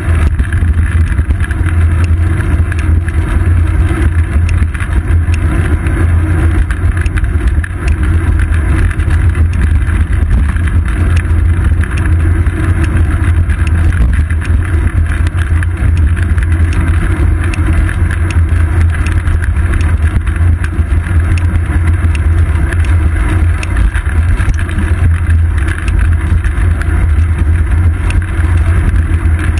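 Steady, loud rumble of wind buffeting and road vibration picked up by a GoPro Hero 2 on a bicycle's seat post while the bike rolls along the road.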